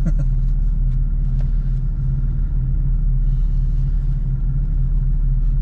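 Car engine running steadily with a low rumble, holding one even note with no revving.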